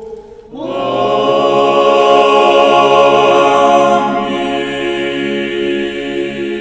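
A cappella choir holding a sustained chord, which comes in about half a second in and eases a little softer after about four seconds.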